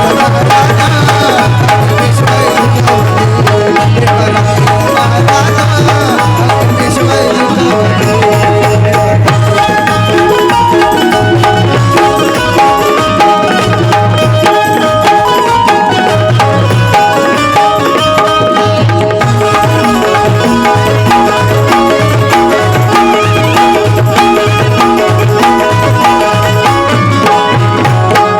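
Instrumental interlude of a Bhimgeet song: hand drums keep a steady beat under a repeating melody, with no singing.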